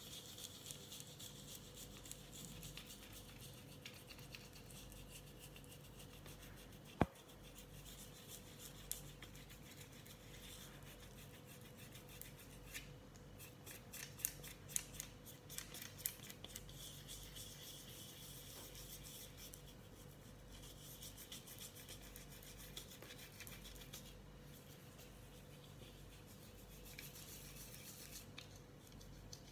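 Toothbrush bristles scrubbing a rubber suction pad coated in toothpaste and baking soda: a faint, steady scratchy rubbing made of quick back-and-forth strokes. A single sharp click comes about seven seconds in.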